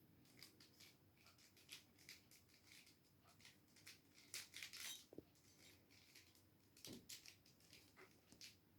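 Faint, irregular clicks and clacks of a 3x3 mirror cube's plastic layers being turned by hand, a little louder about halfway through and again near the end.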